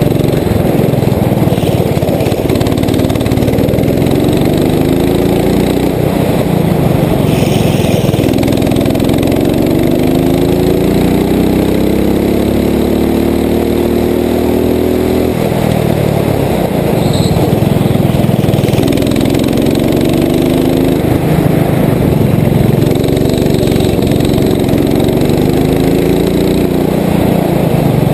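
Rental go-kart engine heard from on board, running under throttle: its pitch climbs steadily for several seconds as the kart accelerates down a straight, falls away about halfway through when the throttle is lifted, then rises again in a few shorter pulls.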